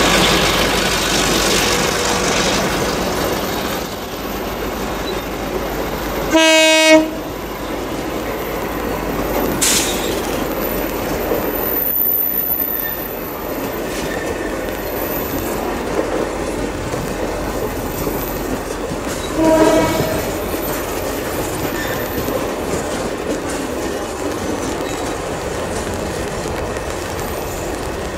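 CC 202 diesel-electric locomotive running past with a rake of empty flat wagons, its wheels clacking over the rail joints, loudest in the first few seconds. A short locomotive horn blast sounds about six and a half seconds in, and a fainter one near twenty seconds.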